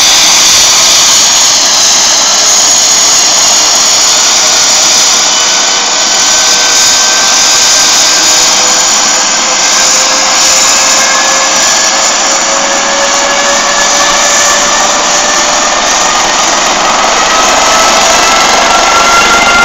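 Air ambulance helicopter's turbine engines and rotor running on the ground: a loud, steady whine whose tones rise slowly in pitch as the engines spool up for take-off.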